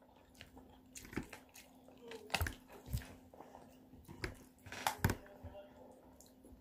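Metal fork clinking and scraping in a food container as a boy eats, a scattered string of short clicks, with some chewing; a faint steady hum runs underneath.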